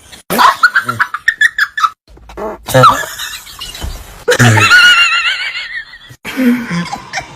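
A fart, heard as a buzz of rapid pulses about a second in, followed by several bursts of high-pitched squealing laughter with a wavering pitch.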